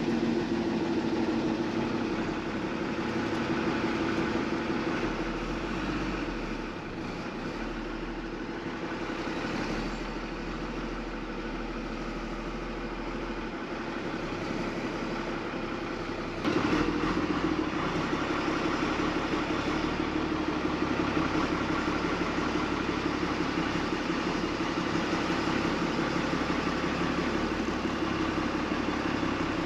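Pickup truck engine running at low speed while towing a car trailer loaded with a Ford Bronco, a steady hum. It grows quieter about six seconds in and picks up again sharply about sixteen and a half seconds in.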